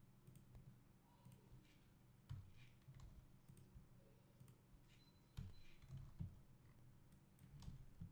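Faint, scattered computer mouse clicks and key presses, a few seconds apart, over a low steady hum.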